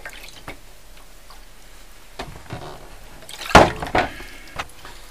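Lith developer sloshing in a darkroom developing tray with a print in it, soft and intermittent, with a louder sudden slosh about three and a half seconds in.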